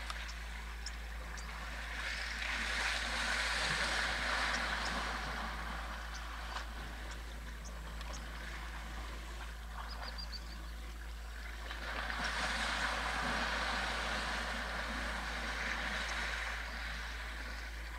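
Water splashing and sloshing as an African elephant wades and kicks through a shallow waterhole, swelling twice, over a steady low rumble.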